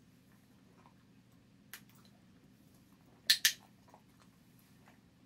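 Dog-training clicker: a loud, sharp double click about three seconds in, press and release, with a fainter click earlier. It is the marker that tells the puppy it has lain down correctly and a treat is coming.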